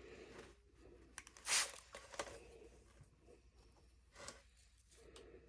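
Faint handling noises: a short hiss about a second and a half in, then a few soft clicks and rustles.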